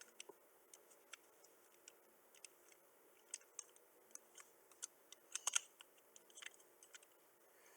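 Faint, scattered plastic clicks of a minion-shaped Rubik's-type cube as its layers are turned, with a quick run of three clicks about five and a half seconds in.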